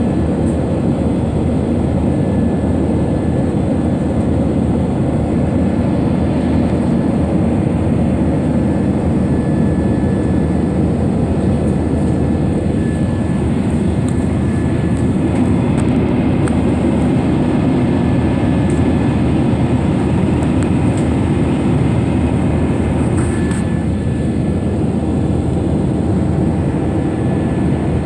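Steady jet engine and airflow noise inside the cabin of a Wizz Air Airbus A320-family airliner during its climb after takeoff: a dense, unchanging low rumble with a faint thin whine above it that comes and goes.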